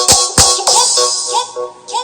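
Electronic dance music played loud through a 4x4 speaker box set-up as a sound test, with two heavy bass-drum hits in the first half-second.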